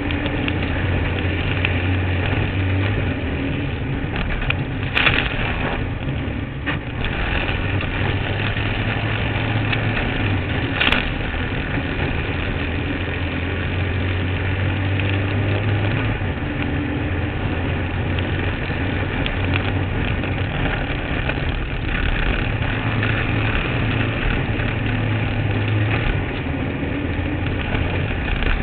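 Kart cross buggy's engine running under racing load, heard onboard over a dirt track, the low engine note swelling and easing as the throttle changes. Two sharp knocks cut through, about five and eleven seconds in.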